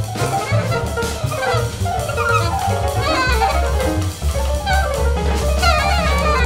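Free jazz with an alto saxophone playing quick, winding lines over a walking bass and busy drums and cymbals.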